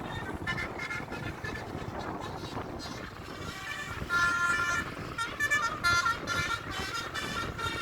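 Bus 'telolet' multi-tone horn playing a tune of short pitched notes, louder from about four seconds in, over a low rumble of traffic.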